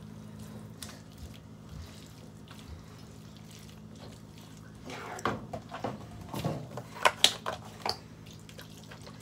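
A spoon stirring chunks of chicken into a wet, brothy pot pie filling in a pan: liquid sloshing and squelching, with a few sharp clacks of the spoon against the pan, mostly from about five seconds in. A low steady hum runs underneath.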